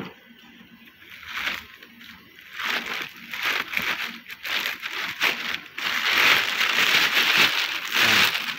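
Thin plastic wrapping being handled and pulled back, crinkling in irregular rustles that start faint and grow loud and nearly continuous over the second half.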